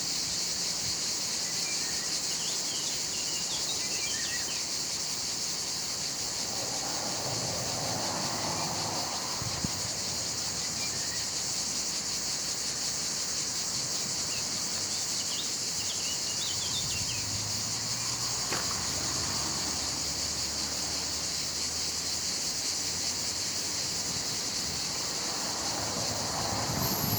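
Steady, unbroken shrill of insects in chorus, with a few faint bird chirps twice.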